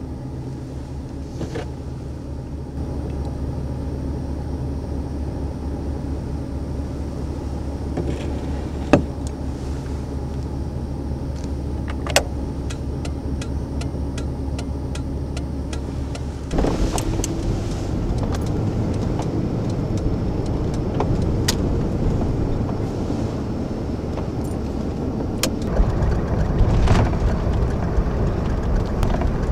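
Car driving, heard from inside the cabin: a steady low engine and road hum. About halfway through it turns rougher and noisier, and a few sharp clicks sound in the first half.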